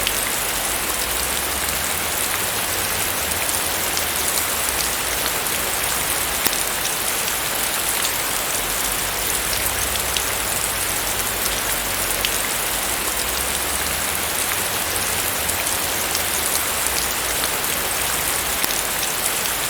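Heavy rain falling steadily as a dense, even hiss, with individual drops ticking now and then.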